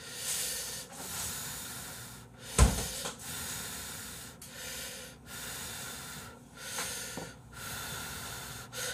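Instant ramyeon noodles slurped from chopsticks in several long draws with short breaks between them. A single sharp knock about two and a half seconds in is the loudest sound.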